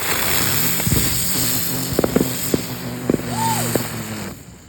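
A small fountain firework (a 'spitter') hissing loudly as it sprays sparks, with a few sharp crackles in its second half, then cutting off suddenly about four seconds in.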